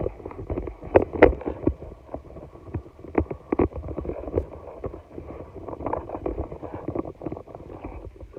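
Close handling noise: dense, irregular clicks, knocks and rubbing as small plastic toy pieces are fiddled with by hand, with a few sharper knocks about a second in.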